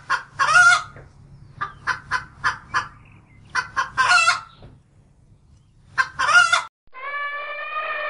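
Chickens clucking: three runs of quick short clucks, each ending in a longer drawn-out squawk. Near the end, a long, steady elephant trumpet call begins.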